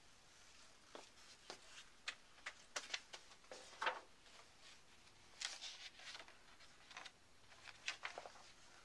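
Scattered light clicks and knocks at an uneven pace, the loudest about four seconds in, as a handheld camera is carried through a quiet room.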